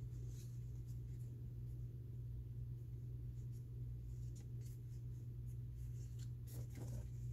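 Trading cards being handled: faint light scraping and clicks, a few more distinct ones near the end, over a steady low hum.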